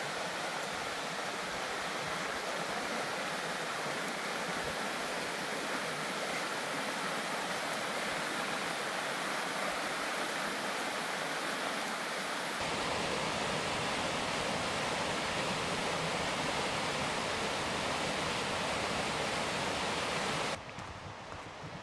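Mountain creek rushing over rocks in cascades: a steady rush of water. About twelve seconds in it turns fuller and deeper, and near the end it drops to a quieter rush.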